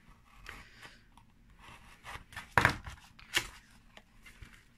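Scissors cutting into a card-and-plastic stamp package, which is then pulled open by hand: light rustling and tearing with two louder sharp sounds a little past halfway.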